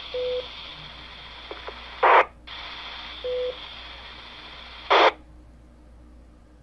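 Talkpod A36 Plus handheld radio's speaker receiving a repeater keyed up with no speech: a steady hiss with a short low beep, broken twice by a loud burst of static as the carrier drops. After the second burst, about five seconds in, the hiss stops as the carrier ends.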